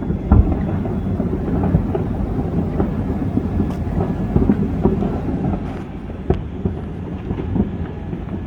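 Many fireworks going off at once, their booms merging into a continuous rumble with scattered sharper cracks and pops.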